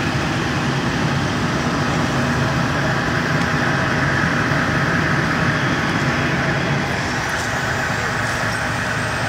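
Fire truck engine running steadily: a constant low hum with a rushing hiss above it.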